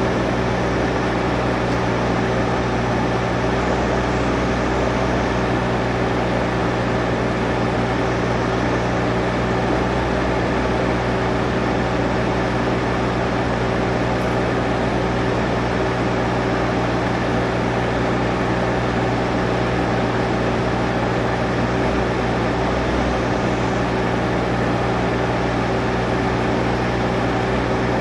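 Stihl MS661 chainsaw on a Logosol chainsaw mill, held at steady full throttle through a long cut in a maple log: an unbroken engine drone with the hiss of the chain cutting.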